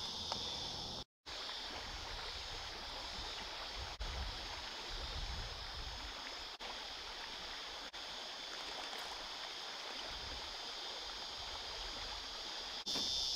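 River water running over a shallow rocky riffle, a steady rushing hiss, with cicadas droning in a high steady band. The sound cuts out for an instant about a second in.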